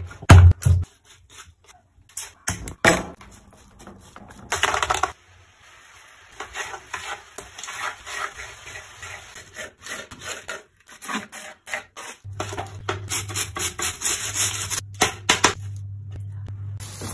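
Kitchen knife on a bamboo cutting board: irregular knocks and scrapes as raw chicken breast is sliced and diced, with a few loud knocks near the start. A low steady hum comes in about two-thirds of the way through.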